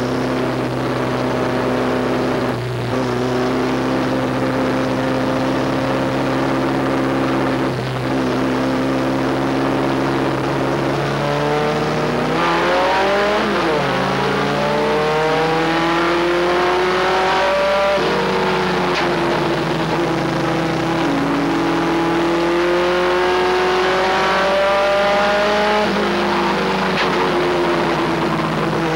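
Race truck engine heard from inside the cab under racing load, holding a steady pitch at first, then rising in pitch and dropping off sharply, over and over, as the throttle goes on and off around the oval.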